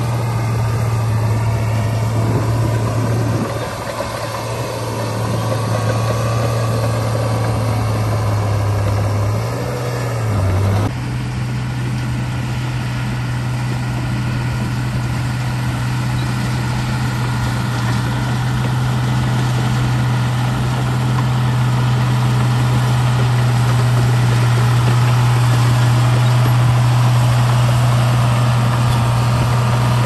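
Heavy earthmoving machine's diesel engine running steadily with a deep drone. Its pitch dips briefly a few times early on, and its sound changes abruptly about a third of the way in, then holds steady.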